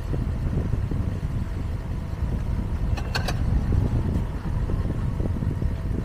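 Low, steady rumble of street traffic, with three quick, bright clinks of bowls being handled about three seconds in.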